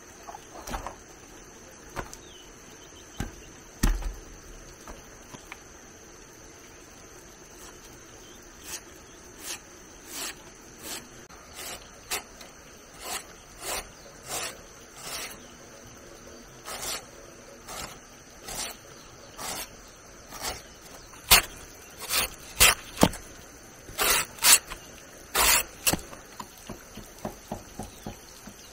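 A blade shaving strips of wood off a log in short strokes roughly a second apart, the loudest strokes coming in a cluster near the end. A steady high insect drone runs underneath.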